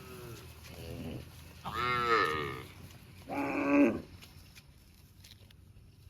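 Cows mooing: two short, faint moos, then two loud, drawn-out moos, the last ending about four seconds in.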